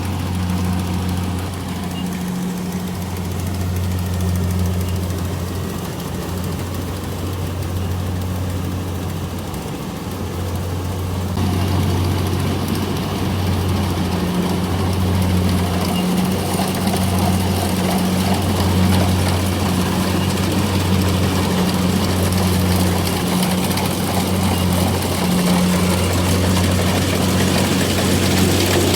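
Combine harvester's diesel engine running with a steady low drone. About eleven seconds in, a louder rushing noise joins it and stays.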